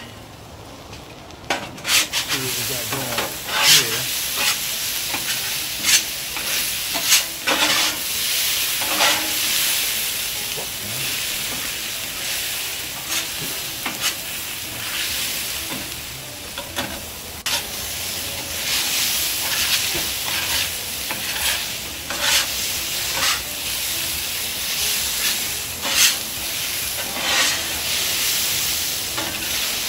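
Homemade hash brown potatoes sizzling on a Blackstone flat-top griddle as metal spatulas scrape and tap across the steel surface, turning and spreading them. The sizzle swells about two seconds in, with frequent sharp scrapes throughout.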